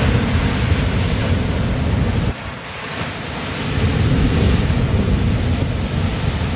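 Strong wind buffeting the microphone, with the wash of ocean surf behind it. It drops off sharply a little over two seconds in, then builds back up.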